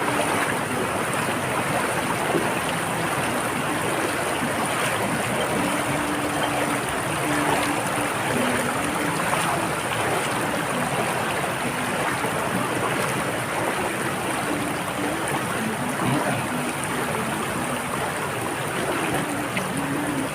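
Steady rush of flowing river water, with a thin, steady high-pitched tone above it.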